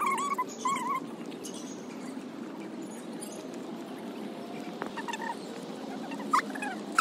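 A dog whining and yelping in short, high, wavering calls: a few at the start, one or two about five seconds in, and more near the end, over a steady low background hum.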